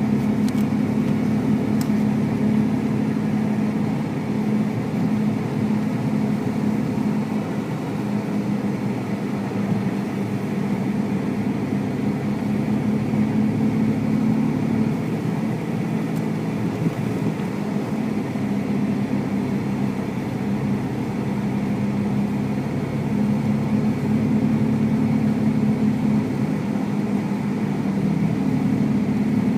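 Car's engine and road noise heard from inside the cabin: a steady low hum that holds even throughout.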